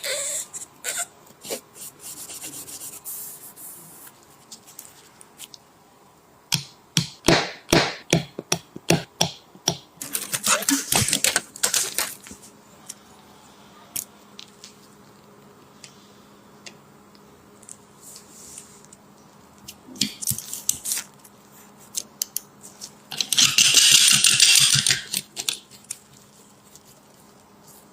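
Hands and small tools working on a mobile phone: scattered clicks and taps, a quick run of them a few seconds in, and two stretches of rustling or scraping noise.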